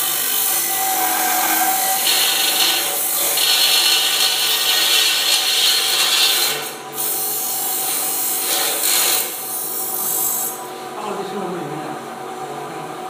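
Electric chicken-cutting machine's circular blade sawing through a whole raw chicken, bones included: a loud grating noise over the motor's steady hum. The cutting breaks off briefly about seven seconds in and stops near ten and a half seconds, leaving the machine running quieter.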